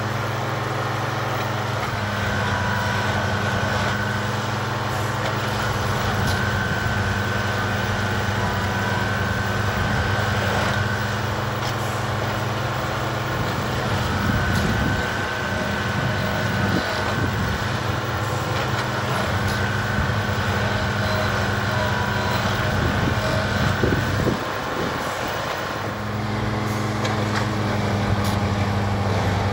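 Small railroad tie tamper running on its diesel engine with a steady low hum, and a high whine that comes and goes several times. About halfway through, and again shortly before the end, its tamping tools work down into the ballast and add a rough rumble for a few seconds at a time.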